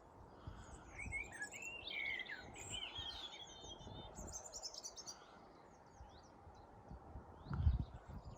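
Common blackbird singing, its warbling phrases densest over the first few seconds, with thinner high songbird notes around it. A brief low rumble near the end is the loudest moment.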